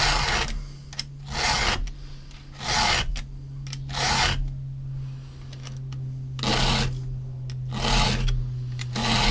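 Chainsaw file rasping by hand across the cutter teeth of a Stihl chainsaw chain: about seven strokes of roughly half a second each, with a longer pause in the middle. The teeth are being reprofiled because they are badly worn.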